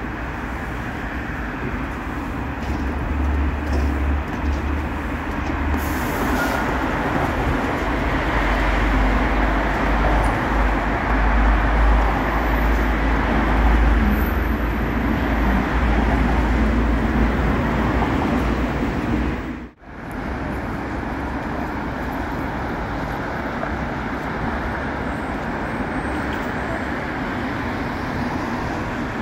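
Urban traffic and light-rail trams: a steady rumble with a deep low hum that swells for the first two-thirds, then an abrupt cut to steadier, thinner traffic noise.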